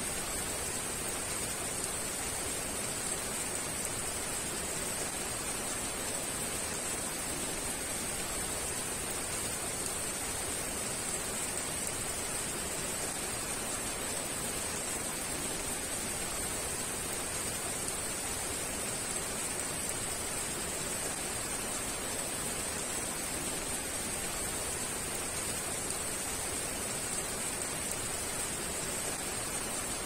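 Heavy rain falling, a steady even hiss with no separate drops, thunder or other events standing out.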